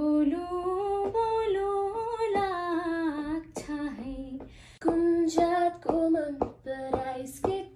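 A woman singing unaccompanied: long held notes with a slight waver for the first three and a half seconds, then, after a short break, a run of shorter notes.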